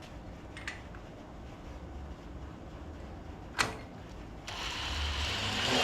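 A sharp click, then a hissing spray that grows louder for about a second and a half: fluid shooting out of an unplugged sensor hole in a small-block Chevy 350 V8.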